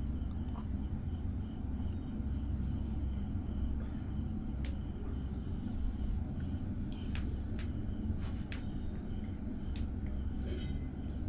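Flat steel spatula stirring and scraping fried rice around a steel kadai, with scattered clicks and scrapes of metal on the pan. Under it run a steady low rumble and a steady high-pitched whine.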